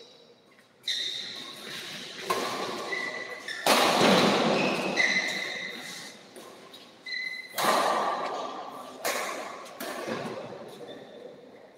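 Badminton doubles rally: rackets striking the shuttlecock with sharp cracks every second or so, each hit echoing and fading in the large hall. Short high squeaks of players' shoes on the court come in between.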